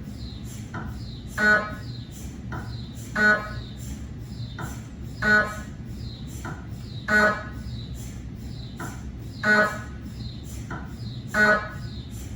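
GE 3T Twinspeed MRI scanner's gradient coils running a cardiac scan sequence: rapid, steady knocking over a low hum, with a louder buzzing pulse about every two seconds.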